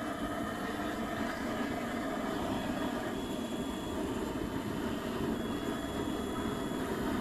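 Wood fire burning in a wood stove, a steady rushing roar with no break.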